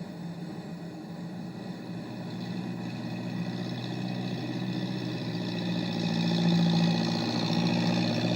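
Engine of a log-lifting machine running steadily, getting louder from about two seconds in as it draws near.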